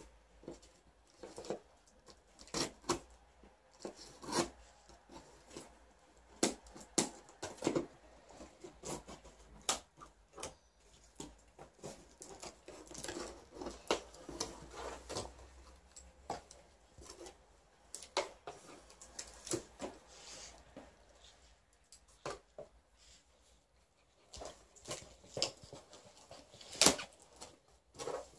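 Scissors snipping packing tape and hands handling a cardboard box: scattered short snips, scrapes and rustles. A dog sniffs at the box.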